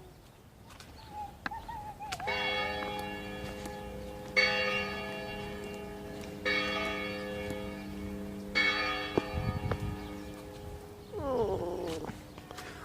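Church bell struck four times, about two seconds apart, each stroke ringing on into the next. A brief falling call comes near the end.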